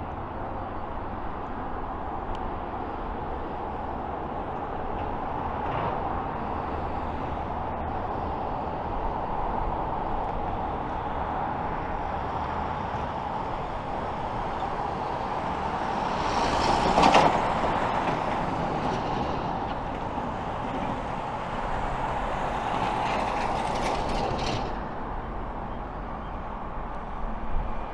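Freight train passing: diesel locomotives and wagons rolling on the rails with a steady rumble that swells to its loudest about 17 seconds in.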